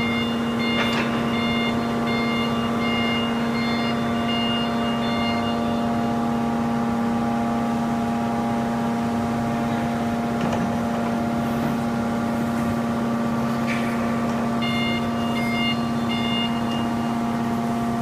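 Hydraulic power unit of a car-baling press running with a steady hum. A high electronic beeper pulses on and off for the first six seconds and again near the end, with a few faint knocks.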